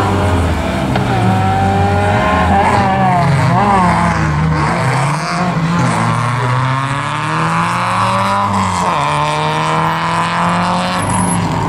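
Race car engine pulling hard through a slalom course, the revs climbing and dropping several times as it accelerates, brakes and changes gear.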